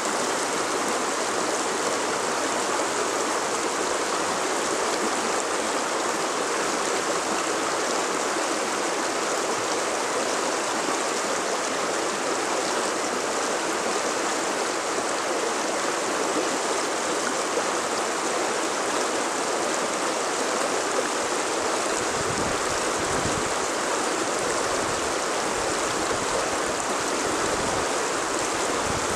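Shallow stream running over and around rocks: a steady rush of flowing water.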